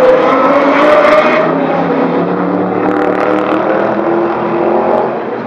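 Lexus LFA's V10 engine accelerating past. Its note climbs in pitch over the first second or so, then falls lower and fades gradually as the car moves away.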